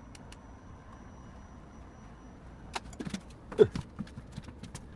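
Faint room tone, then from about three seconds in a cluster of sharp clicks and knocks from handling tools and boards during gluing work. The loudest is a knock with a short falling squeak.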